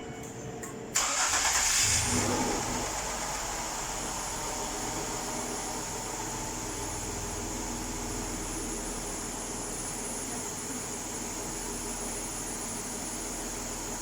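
2005 Ford Escape Limited engine starting from cold about a second in, then settling to a steady idle with a thin high whine from about four seconds in. The owner reports a strange engine noise when cold that several mechanics could not trace.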